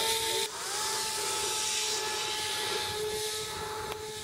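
Electric motor and propeller of an FPV Raptor radio-control plane, a steady whine. It breaks off abruptly about half a second in, then rises in pitch again and holds steady.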